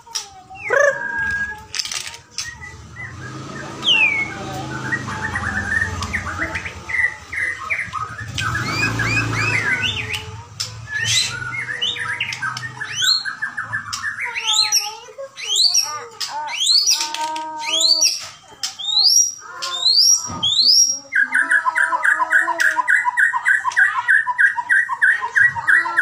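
White-rumped shama (murai batu, Bahorok strain) singing a long, varied song of whistled phrases, quick trills and sharp upswept notes. Near the end it switches to a fast, evenly repeated phrase.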